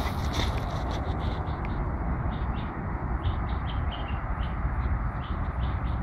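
Rhythmic chirping, about three short chirps a second, over a steady low rumble.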